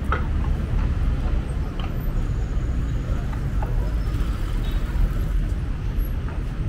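Steady city street background: a low rumble of road traffic with a few faint clicks and knocks.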